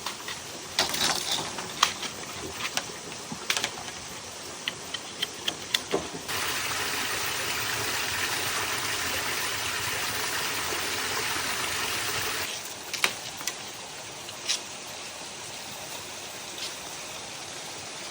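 Scattered sharp knocks and taps of bamboo building work. About six seconds in, a steady rushing noise starts abruptly and runs for about six seconds before cutting off, after which the occasional knocks return.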